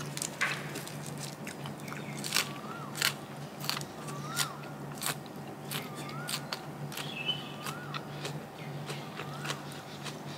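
Close-up chewing and biting of crisp food, with sharp irregular crunches. A faint short chirp repeats about once a second over a steady low hum.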